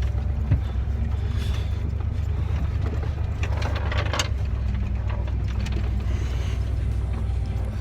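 Ford F-150 truck engine running with a steady low rumble, not running happily, with a few brief rattles a little past the middle.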